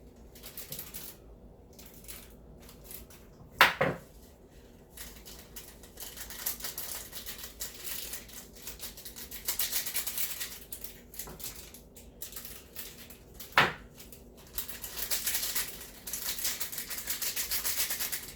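Small plastic seasoning packets crinkling as dry pepper flakes are shaken out of them, in rustling spells with short pauses between, and two sharp knocks about ten seconds apart.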